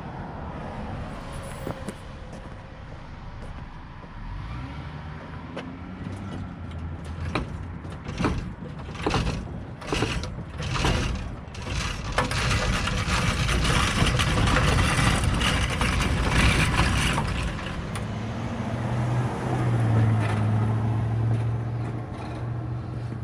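A truck engine running under load, with a string of metal clanks and knocks partway through and a steadier, louder low hum near the end.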